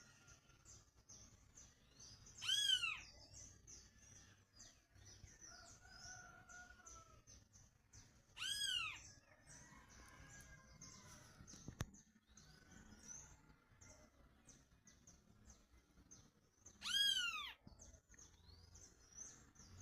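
A cat meowing three times, each a short call rising and falling in pitch, spaced several seconds apart, over a steady background of small birds chirping.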